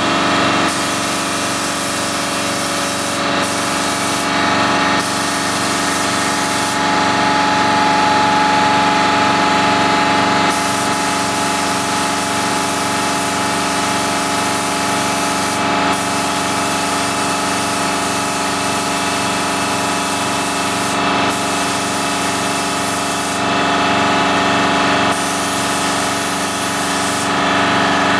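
Compressed-air spray gun hissing as etching primer is sprayed, the hiss easing off for short pauses several times, over a steady mechanical hum.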